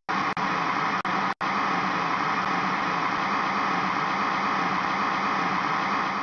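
Loud, steady rushing noise like static, cut off abruptly to silence for an instant a few times early on, and fading away at the end.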